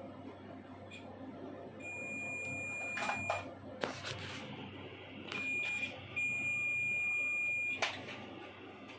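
Electronic beeps from the Epson EB-425W projector's beeper: one long high beep about two seconds in, a few sharp clicks, then a short beep and a longer one, over a steady low hum.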